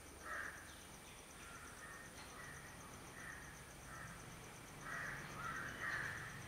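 Birds cawing: a string of short, harsh caws at uneven intervals, loudest and closest together about five to six seconds in.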